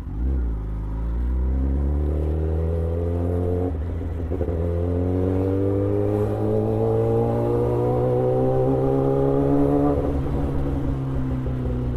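Kawasaki ZX-10R's inline-four engine pulling hard as the superbike accelerates, its note rising steadily. About four seconds in the climb breaks briefly for an upshift, then the note rises again through the next gear and eases off slightly near the end.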